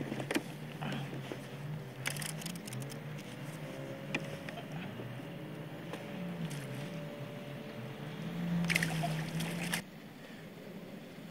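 Water sloshing and trickling beside a kayak, with scattered knocks and clicks, as a yellowtail kingfish is netted and lifted from the water. There is a louder burst of splashing near the end, and a low wavering hum beneath.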